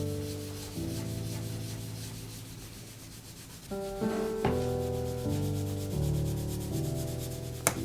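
A wool sock rubbing and polishing dried wax on a book's leather and mulberry-paper cover in quick repeated strokes, under soft background music of held chords. There is a sharp tap near the end.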